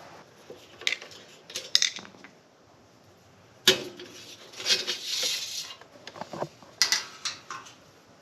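Light metal clinks and clatter with a sharp knock in the middle and a short scrape after it, as the refrigerator's screwed-on back panel is taken off.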